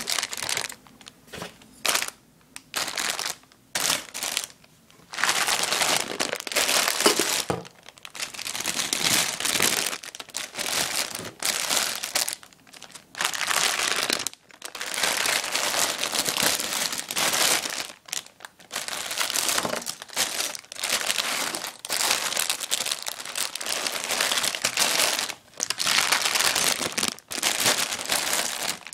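Clear plastic bags of Lego Technic parts crinkling as a hand rummages through them. The rustling comes in short bursts at first, then in long stretches.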